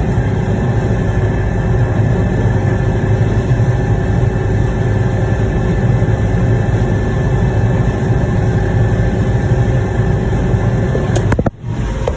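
Farm harvesting machinery running steadily, a loud continuous engine hum with steady whining tones over it. About eleven and a half seconds in, the sound drops out for a moment, then returns.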